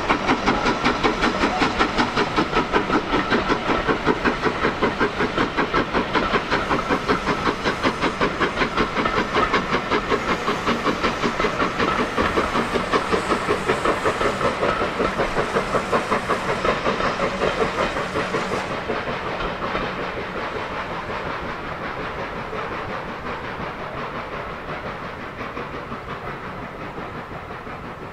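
Steam locomotive working hard with a train of coaches, its exhaust beating rapidly and evenly. The beats fade away over the second half as the train draws off.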